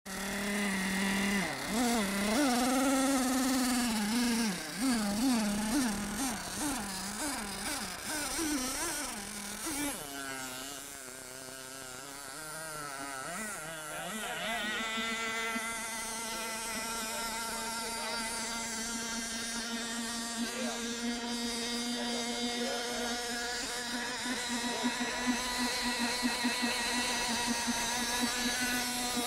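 Small engine of a radio-controlled hydroplane boat buzzing. Its pitch swings rapidly up and down for about the first ten seconds, then settles into a steady drone as the boat runs across the water.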